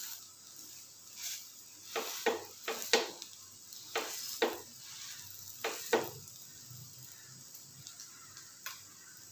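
Slotted metal spatula scraping and clacking against a flat griddle about ten times in the first six seconds as it presses and shifts a bread omelette. Under it a faint steady sizzle of the egg and bread frying, which is all that remains after that.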